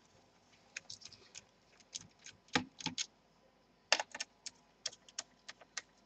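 Small screwdriver clicking and tapping on the screws that hold a laptop's optical drive as they are undone: irregular light clicks in small clusters.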